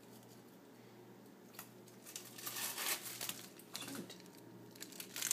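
Cheese package crinkling and tearing as it is struggled open, mostly in a dense stretch from about two seconds in, with a couple of shorter rustles near the end.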